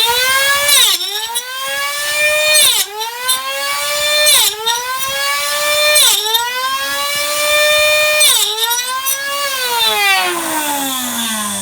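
Small electric motor of a homemade table saw whining at high speed. Its pitch drops sharply and climbs back about five times, as the blade is loaded and recovers. Near the end the pitch slides steadily down as the motor slows.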